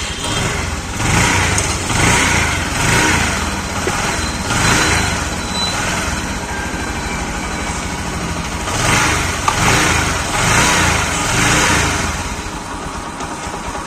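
Bajaj Platina motorcycle's single-cylinder four-stroke engine running, idling with several throttle blips. It runs without the knock that came from a broken camshaft bearing, which has just been replaced.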